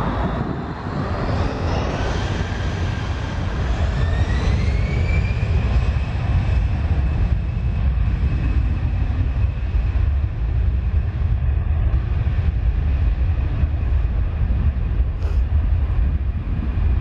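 Airbus A320 jet engines running with a deep rumble and a whine that rises in pitch over a few seconds, then holds steady as the airliner rolls along the runway.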